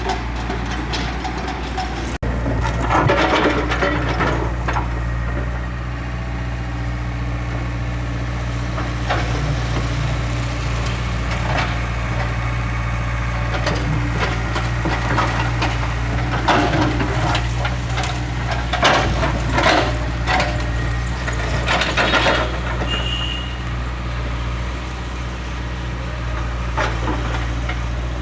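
Hydraulic excavator's diesel engine running steadily, with irregular bursts of scraping, cracking and crunching as its bucket works at a concrete slab.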